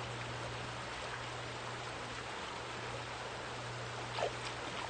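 Shallow, rocky creek flowing: a steady hiss and babble of running water.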